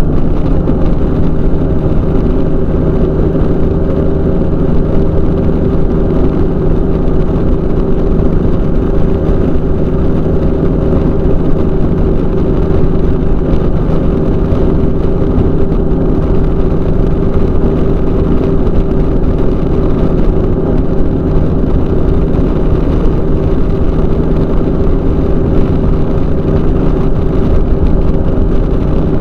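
Weight-shift microlight trike's engine and propeller running steadily in flight at constant power, a loud, even drone with no change in pitch.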